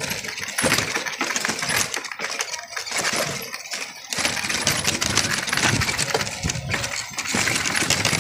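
Cycle rickshaw rattling and clattering over a rough, broken road, a dense, irregular run of metallic clicks and jingles from its frame and fittings.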